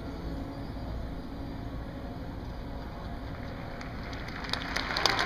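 Hushed stadium crowd hum with no music; about four seconds in, clapping starts and swells quickly into audience applause.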